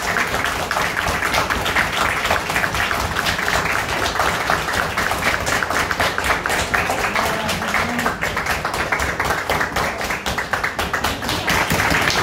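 A small group applauding: many hands clapping steadily.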